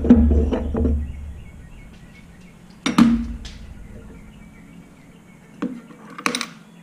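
A few sharp metallic clinks and clicks from a brass oxygen regulator as its bonnet is unscrewed by hand in a bench vise: a double clink about three seconds in, then single clicks and a short cluster near the end. A louder low, rhythmic sound dies away in the first second.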